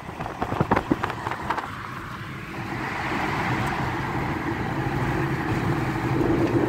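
Road noise inside a moving car: tyre and engine noise growing steadily louder as the car picks up speed on the highway. A few sharp knocks come in the first second and a half.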